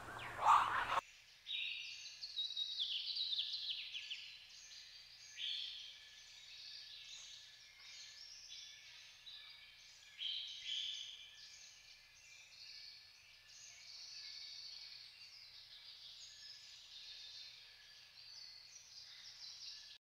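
Birds chirping, many short calls overlapping. The calls are louder for the first second and break off about a second in, then a fainter chirping goes on.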